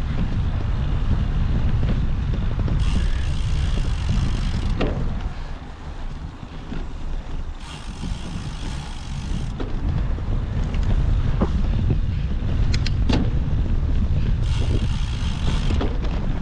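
Wind rushing over the microphone of a moving cyclocross bike, with scattered sharp clicks and rattles from the bike. A hiss comes and goes three times.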